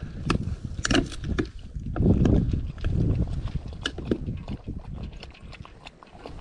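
Dog eating from a metal bowl: a quick, irregular run of clicks and chomps as it eats.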